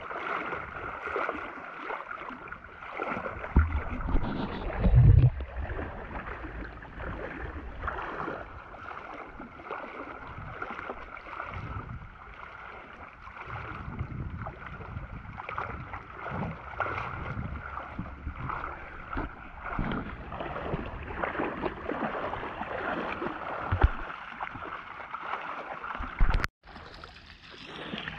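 Water splashing and sloshing around the legs of a person wading through a shallow river. A few low thumps come about four to five seconds in, and the sound breaks off briefly near the end.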